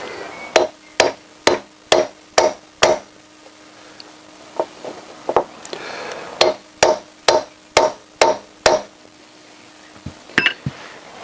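Hammer blows on a socket used as a drift, driving a new rear wheel bearing into the hub of a Honda CBR1000F wheel. There are two runs of about six strikes, roughly two a second, with a few lighter blows between them and a few light taps near the end. The bearing is being driven until it seats fully home, which the change in the strike sound tells.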